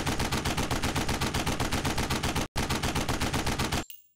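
Rapid automatic gunfire, a steady stream of about ten shots a second with a momentary break about two and a half seconds in. It cuts off abruptly near the end, leaving faint metallic clinks.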